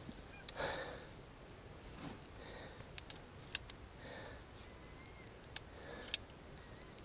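Soft breathing close to the microphone, about one breath every one and a half to two seconds, with a few faint clicks.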